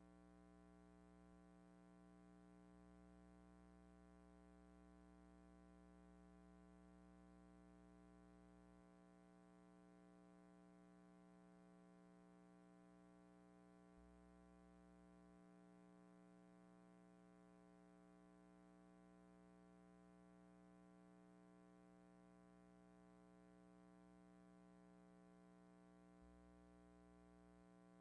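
Near silence: only a faint steady hum.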